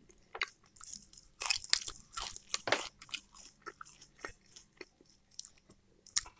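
A person chewing and crunching food right at a clip-on microphone, with fresh green herbs just bitten. The sound is irregular wet mouth clicks and crunches, busiest between about one and three seconds in.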